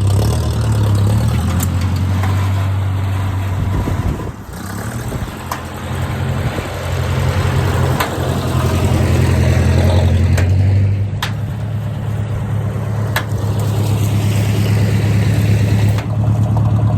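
Massey Ferguson 50 tractor engine running steadily under way, easing off briefly about four seconds in and then pulling strongly again, with a couple of sharp clicks in the second half.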